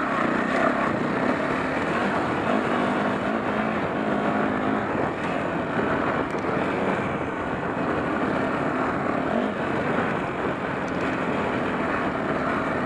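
Yamaha WR250R's single-cylinder four-stroke engine running as the bike is ridden over a muddy, snowy dirt track, its pitch rising and falling a little with the throttle.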